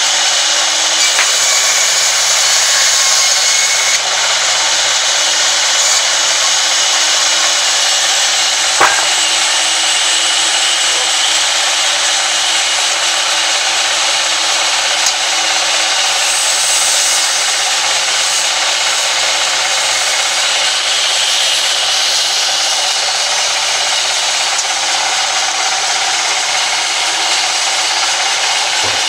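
Sawmill band saw running and cutting lengthwise through timber: a loud, steady sawing noise. A single sharp knock sounds about nine seconds in.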